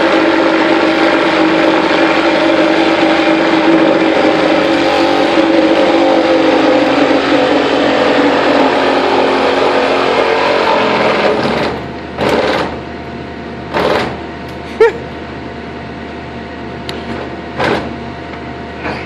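Sawzall reciprocating saw cutting through shelving, running steadily for about eleven seconds and then stopping. Three short bursts of the saw follow, with a sharp knock between them.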